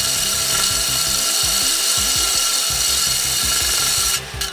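Cordless drill spinning a diamond hole saw into a glass jar: a steady grinding hiss with a constant whine, which stops suddenly about four seconds in.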